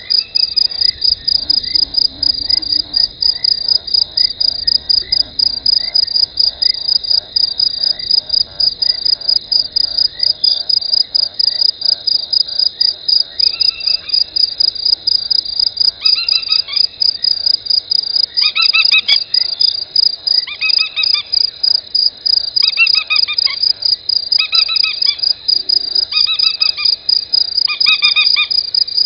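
Insect chirping in a fast, very even pulse that never lets up. In the first half a quieter chirp repeats about once a second underneath it. From about halfway a second animal gives a repeated call of several stacked tones every second or two.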